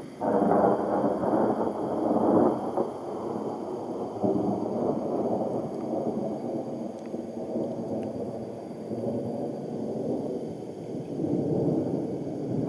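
Thunder breaking suddenly just after the start, then rumbling on. It is loudest in the first couple of seconds and swells again near the end.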